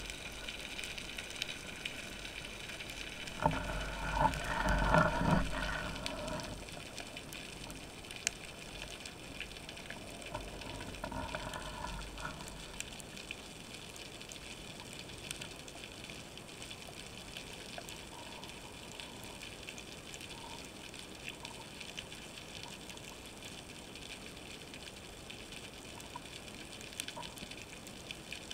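Underwater sound picked up through a diving camera's housing: a steady faint hiss with scattered small clicks. A louder gush of moving water comes about three and a half seconds in and lasts some three seconds, and a weaker one follows around eleven seconds.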